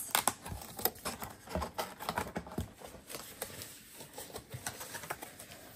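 A white cardboard gift box being handled and its lid lifted open: irregular soft rustles, scrapes and taps of cardboard, busier in the first few seconds and sparser after.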